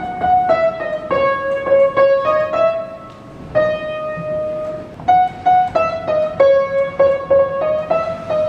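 Upright piano played by hand: a slow melody of single notes, with one longer held note partway through.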